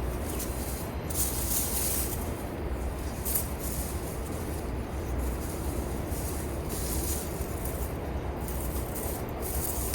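Digging in garden soil to unearth volunteer potatoes: irregular scraping and rustling of soil and plants.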